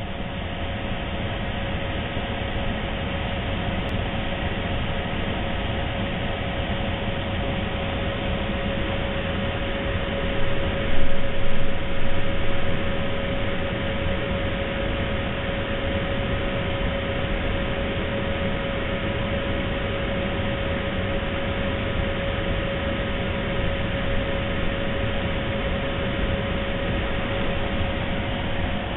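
Steady mechanical hum and hiss with a constant whine and a low rumble, swelling briefly about a third of the way in.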